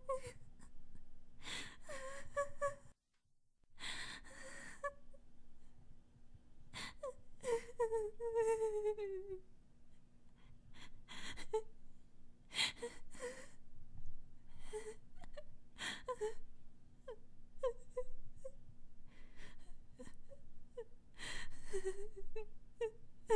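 A girl crying: gasping, sobbing breaths between short high whimpers, with one longer falling wail about eight seconds in. The crying breaks off for a moment about three seconds in.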